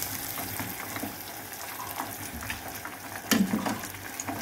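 Coated chicken drumsticks deep-frying in hot oil, a steady crackling sizzle. About three seconds in there is a short, louder clatter as a drumstick is lifted out of the oil with a slotted turner.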